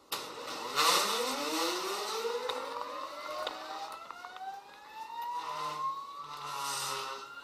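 Geared stepper motors of a wire-driven parallel robot whining as they reel its wires, several tones rising steadily in pitch as the motors speed up. A burst of rushing noise comes about a second in and another near the end.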